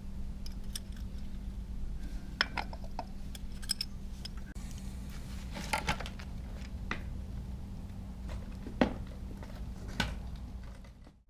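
Scattered metal clicks and clinks of a Warn locking hub's parts being handled and fitted onto a Ford Bronco's front axle, over a steady low hum. The loudest is a single knock about nine seconds in, and the sound fades out just before the end.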